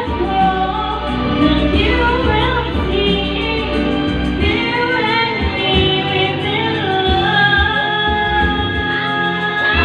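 A woman sings karaoke into a microphone over a recorded backing track, holding a long note near the end.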